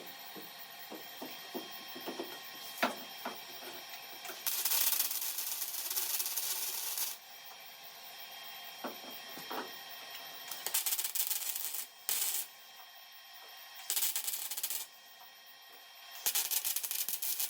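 MIG welder stitch welding the steel quarter panel of a 1969 Dodge Coronet: short bursts of crackling arc, the first about two and a half seconds long, then several shorter ones, with a few light clicks before the first.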